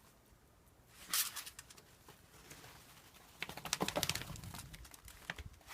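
Quick crunching and rustling of movement through fresh snow, in two short bursts: one about a second in, and a longer one from about three and a half seconds in.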